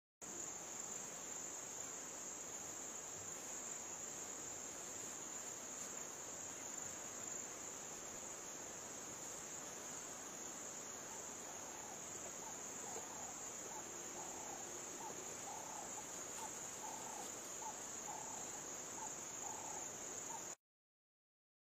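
Steady, high-pitched chorus of insects in dry grassland, which starts abruptly just after the beginning and cuts off suddenly near the end.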